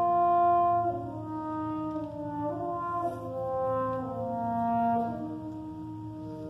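High school concert band playing sustained chords, with brass to the fore, the harmony moving to a new chord every second or so; loudest in the first second.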